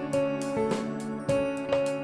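Background music of strummed guitar chords.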